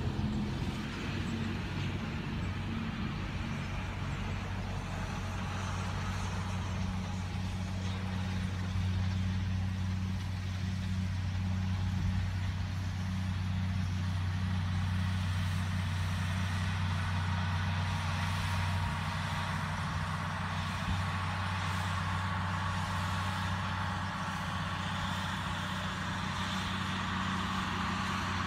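Massey Ferguson 6290 tractor's six-cylinder diesel running steadily under load while pulling a Krone Comprima CF 155 XC baler-wrapper through the swath. The drone is loudest about a third to halfway in as the outfit passes closest, then eases slightly as it moves away.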